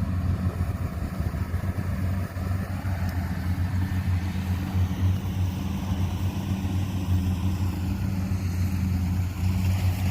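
Rice combine harvester's diesel engine running steadily under load, a constant low drone with a fluttering beat.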